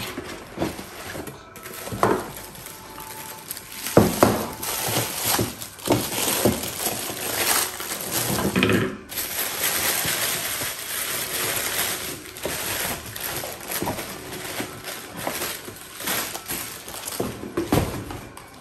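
Unpacking a small kitchen appliance from its cardboard box: continuous rustling and crinkling of tissue paper and packaging, with several sharp knocks and clinks as the moulded pulp insert and the mini chopper's parts are handled.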